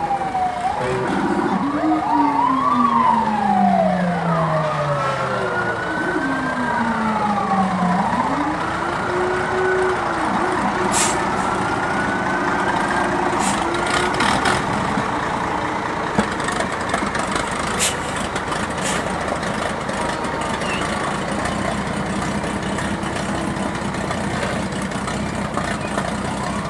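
Fire engine sirens wailing, their pitch sliding down and then up again through the first ten seconds or so, over the steady running of passing fire trucks. A few short, sharp sounds come around the middle.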